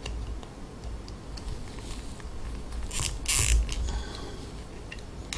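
A small plastic figurine being fitted onto a clear plastic display base: light clicks as the foot pegs are pushed and turned in the base's holes, with a short plastic-on-plastic scraping rub about three seconds in.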